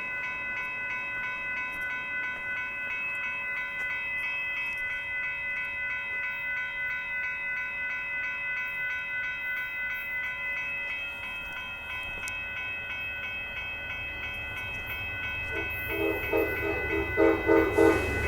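Railroad grade-crossing warning bell ringing steadily in rapid even pulses as a passenger train approaches the crossing. Near the end the train's low rumble builds and a louder, quicker pulsing sound joins in.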